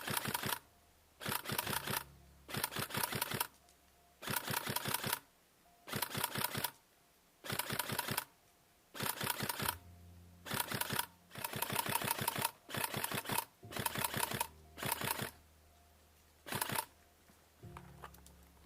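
Airsoft electric rifle firing on full auto in short bursts, each a rapid string of clicks lasting under a second, about fourteen bursts with brief pauses between them.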